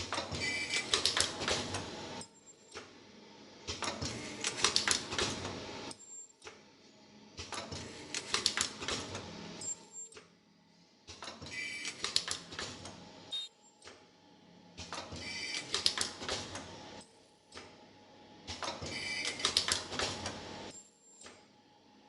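Computer-controlled metal zipper film welding machine running automatically through repeated cycles: a burst of rapid mechanical clicking and clatter lasting about two seconds, six times, roughly every three to four seconds, with quieter pauses between.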